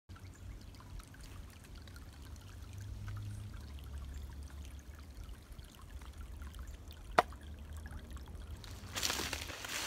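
Shallow woodland creek trickling over stones, with a low rumble on the microphone underneath. A single sharp click comes about seven seconds in, and a short burst of rustling comes near the end.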